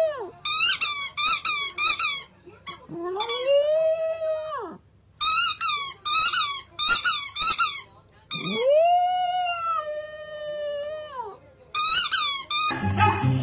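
A dog chewing a rubber squeaky ball, giving several bursts of quick, high squeaks. About three and eight seconds in come long drawn-out squeals, each about two seconds, rising in pitch as the toy is squeezed and dropping away at the end.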